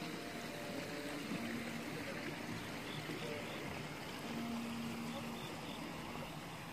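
Man-made wall waterfall running: a steady, even rush of falling water.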